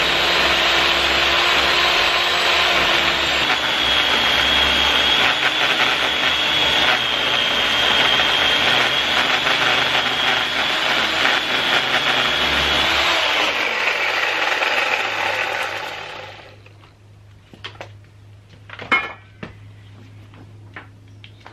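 Corded WORX electric chainsaw running and cutting into a block of cottonwood, a steady motor tone under a high whine. It winds down and stops about sixteen seconds in, followed by a few knocks.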